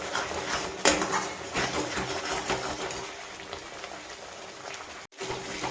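Spatula stirring and scraping spice paste in a kadai of hot mustard oil, with irregular clinks and scrapes over a faint sizzle. The sound cuts out briefly near the end.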